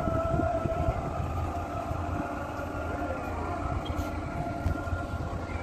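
Fairground swing ride's machinery running: a steady low rumble with a held, even whine over it.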